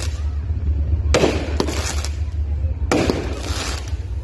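Aerial fireworks bursting: a bang about a second in, two sharper cracks right after it, and another bang about three seconds in, each trailing off.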